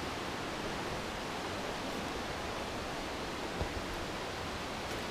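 Steady rushing of water from Big Spring's outflow, with a faint footstep on a stone step about three and a half seconds in.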